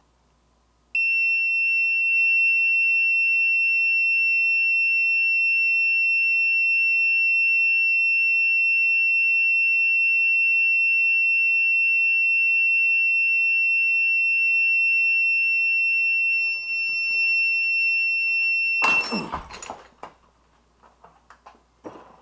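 Digital torque adapter's buzzer giving one steady, high-pitched beep for about eighteen seconds while the wrench is held past its preset torque. Near the end comes a loud crack as the Rocksett-locked flash hider breaks loose, about 59 ft-lb, and the beep cuts off, followed by light metal handling clicks.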